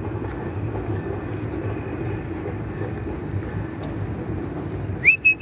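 Steady low outdoor rumble. Near the end a person whistles to call an animal over: a quick rising note followed by several short whistles.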